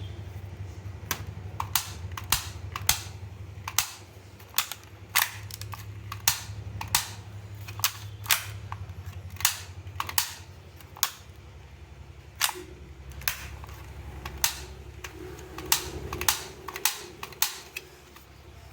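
Toy shotgun firing over and over: about twenty-five sharp snaps at uneven spacing, one or two a second, over a steady low hum.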